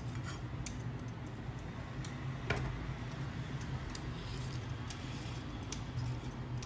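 Metal vegetable peeler scraping the skin off a raw carrot in short, irregular strokes, over a steady low hum.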